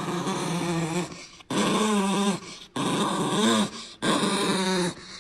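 A dog answering back with four drawn-out vocal moans, each wavering in pitch, as it is scolded for something it did.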